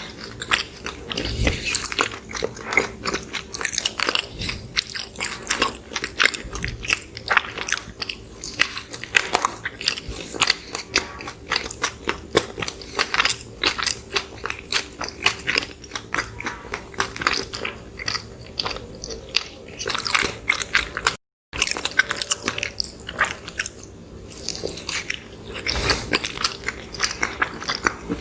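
Close-miked eating of soft cinnamon rolls: many irregular chewing clicks and small mouth smacks. The sound breaks off for an instant about 21 seconds in.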